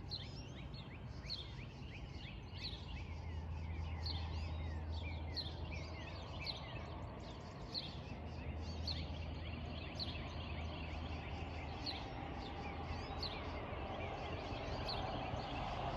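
Birds chirping and singing, many short falling chirps one after another, over the low steady hum of a distant car that swells in the middle and eases off again.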